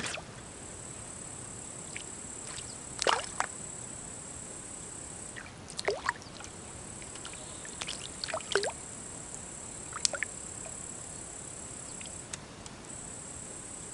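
Quiet outdoor ambience at a pond: a steady high-pitched insect drone, broken by about half a dozen short, sharp chirps that drop quickly in pitch.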